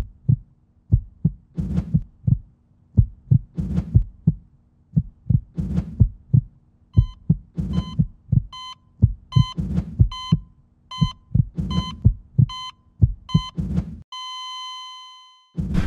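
Heartbeat sound effect: paired low thumps over a steady hum, joined about seven seconds in by a heart monitor's beeps, then one long flatline tone near the end that fades away, the sign of cardiac arrest.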